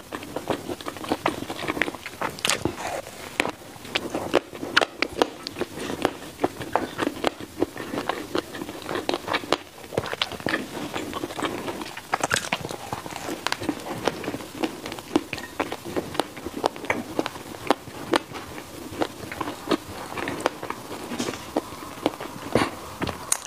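Eating sounds: bites into a bread roll wrapped around a black-pepper pork sausage, then steady chewing full of small wet mouth clicks and crackles, with a few sharper snaps.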